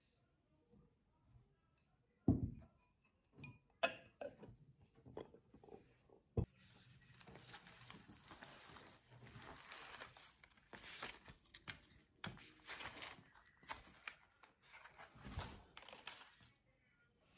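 Ceramic bowls set down on a table: a soft thud about two seconds in, a sharp clink a second later, then a few light taps. From about six seconds on, continuous crinkling rustle of a canvas tote bag and woven straw placemats being handled and pulled out.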